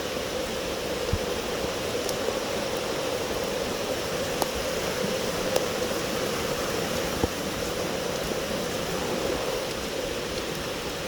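Steady rain, an even rushing hiss, with a few scattered sharp ticks.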